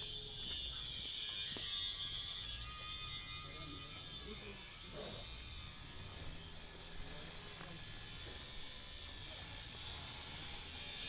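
Steady high-pitched buzzing chorus over a low outdoor rumble.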